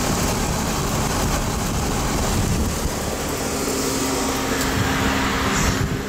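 Bryant central air conditioner's outdoor condensing unit running close up, its condenser fan blowing a steady rush of air over a low rumble.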